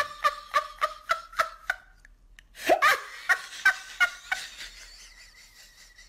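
High-pitched laughter in quick 'ha-ha-ha' pulses, about three a second, in two bouts with a short break between, trailing off near the end.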